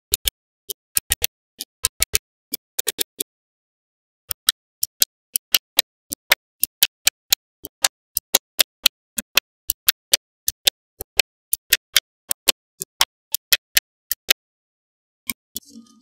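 Small magnetic balls clicking sharply as they snap together one at a time. A few quick clusters come first, then a short pause, then a steady run of about four clicks a second.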